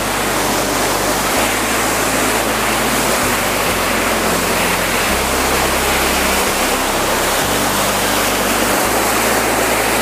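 Mountain stream cascading over granite boulders in small waterfalls: a steady, even rush of falling water.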